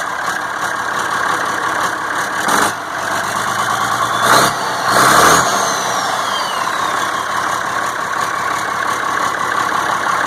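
Cummins 8.3 six-cylinder diesel running on its first start after a new fuel pump was fitted, idling steadily with three short surges a few seconds in, followed by a high whine that falls away.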